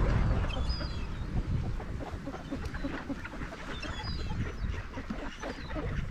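A flock of mallard ducks quacking and chattering in many short, overlapping calls, with a low rumble over the first second or so.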